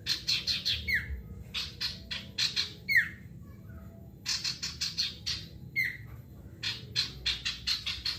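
Male sirtu songbird calling loudly: repeated phrases of quick, sharp notes, most ending in a falling slurred whistle, about every two seconds.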